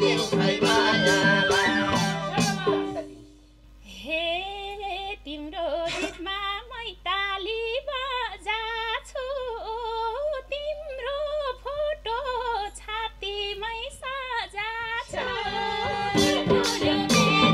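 Nepali lok dohori music. Madal drums and harmonium play until they break off about three seconds in. A woman's voice then sings a slow, wavering, heavily ornamented line over one held low note. The drums and harmonium come back in near the end.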